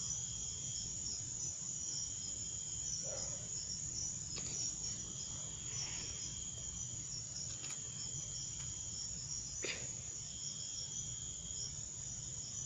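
Crickets chirping in a steady chorus: a constant high shrill, with a lower trill that comes in for about a second at a time every two seconds or so. A few faint clicks.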